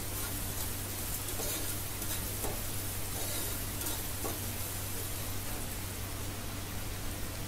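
Sliced onions and green chillies sizzling in hot oil in a metal pot while being sautéed, with a metal spoon stirring and scraping through them about once a second.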